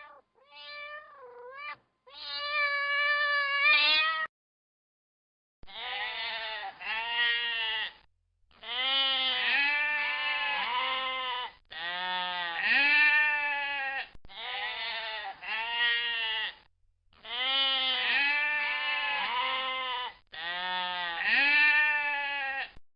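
A few short meows, then repeated bleating: strings of wavering calls come in runs of a few seconds, with brief pauses between them.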